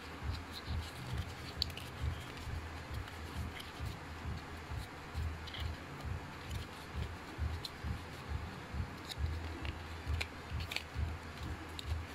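Cardboard packaging insert handled and turned over in the hands: irregular light scrapes and small clicks of paperboard, over low, uneven handling rumble.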